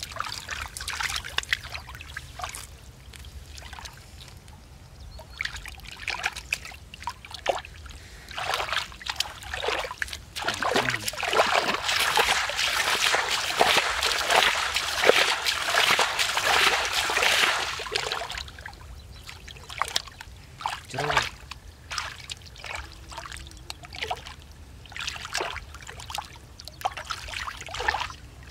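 Hands and feet splashing and sloshing through shallow muddy water: scattered short splashes, with a longer stretch of continuous, louder splashing in the middle.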